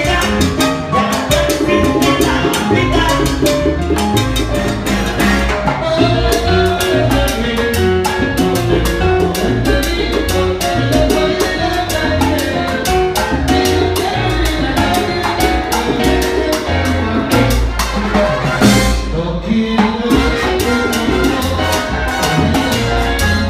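Live salsa conjunto playing at full volume: congas and timbales driving a steady rhythm under a trombone section, with a lead singer at the microphone.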